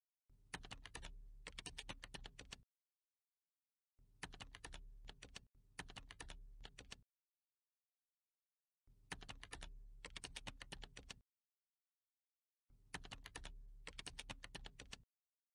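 Computer keyboard typing in four bursts of a couple of seconds each, rapid keystrokes, each burst starting and stopping abruptly with silence in between.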